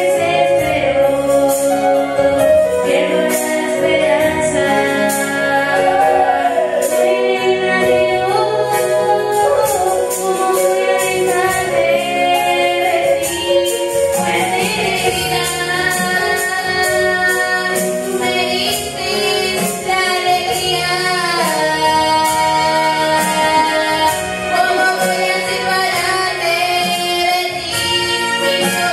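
A woman singing a gospel worship song into a microphone, with instrumental accompaniment and a steady beat. Her voice holds and bends long sung notes throughout.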